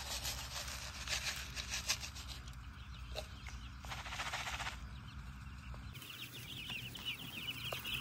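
Chick feed poured and spread by hand in a plastic trough feeder: a dry grainy rustle with small clicks, loudest about four seconds in. About six seconds in, Cornish Cross meat chicks start peeping, many short high chirps at once.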